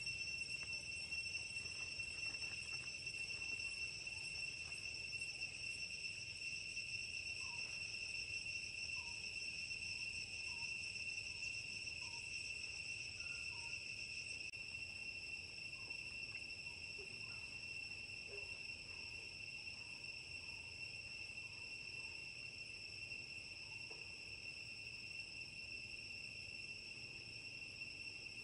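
Steady, unbroken high-pitched drone of insects. Midway through, a run of faint short chirps comes about once a second.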